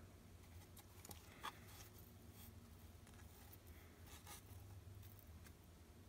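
Near silence: room tone with a few faint clicks and scratchy rustles from handling the foam pinning board.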